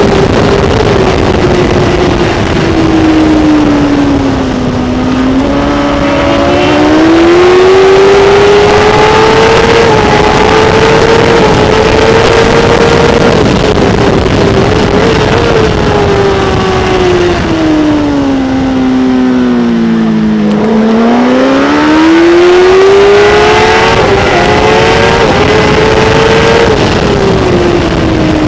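Onboard sound of a Kawasaki ZX-10R inline-four superbike engine at high revs under racing throttle. The revs sag a little about five seconds in and climb back. About twenty seconds in they fall much further and then wind back up. Just before the end they drop again.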